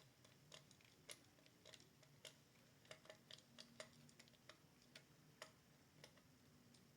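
Faint, irregular clicking of a Klein stubby ratcheting screwdriver's ratchet as it is worked back and forth driving a screw, roughly two clicks a second.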